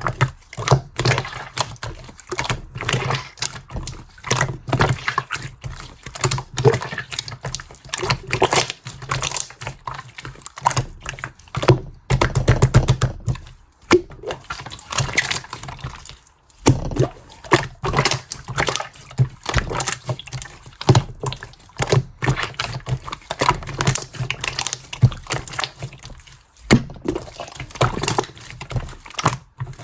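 Pink clear slime being squished, poked and folded by hand, giving a dense, irregular run of sticky clicks and pops, with a few brief pauses.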